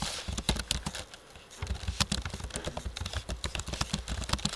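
Typing on a computer keyboard: quick, irregular key clicks, with a brief pause about a second in before they resume more densely.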